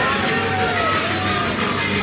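Music playing over an arena's public-address system, with crowd noise beneath it.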